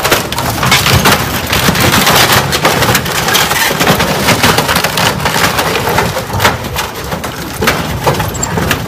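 Wooden floating dock being crushed by the hull of a large motor yacht: continuous dense cracking and splintering of wood, with a low rumble underneath.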